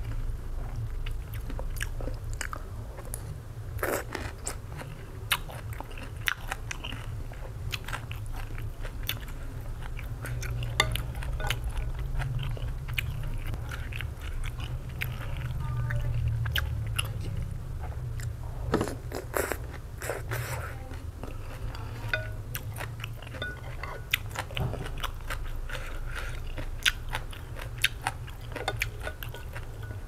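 A person chewing and eating noodle soup, with many scattered sharp wet mouth clicks and smacks, over a steady low hum.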